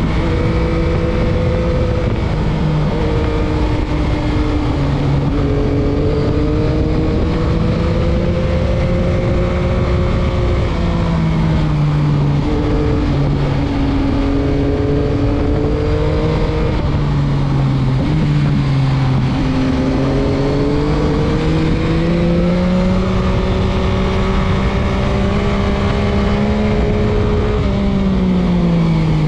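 Stock 2021 Yamaha MT-09's 890 cc three-cylinder engine under way, its note climbing and falling as the rider works the throttle through corners, dropping away sharply several times as it eases off or shifts, over steady wind rush on the microphone.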